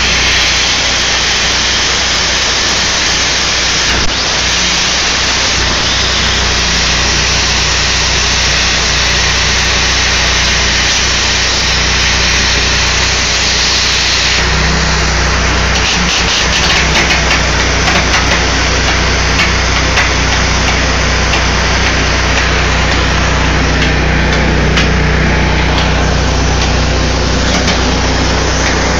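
Plasma cutter arc from an Everlast Power Plasma 60C on a CNC table cutting metal plate: a loud, steady hiss with a steady low hum underneath, the hum growing stronger about halfway through.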